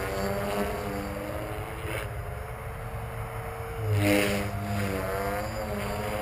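Electric 450-size flybarless RC helicopter (Next D Rave 450 FBL) in flight: a steady motor-and-rotor whine whose pitch slowly rises and falls as it manoeuvres, swelling louder about four seconds in.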